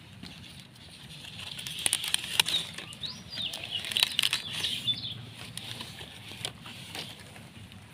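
Stiff pineapple leaves rustling and scraping, with sharp crackles, as a hand grips and pushes at the fruit on the plant; loudest between about two and five seconds in.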